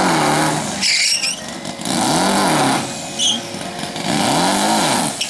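Air-cooled VW Beetle flat-four drag engine revved in three blips about two seconds apart, each rising and falling in pitch, with a couple of short high squeaks in between.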